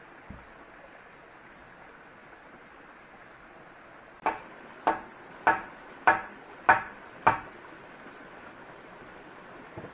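Six evenly spaced chopping blows into wood, a little over half a second apart, starting about four seconds in, each a sharp knock with a short ring.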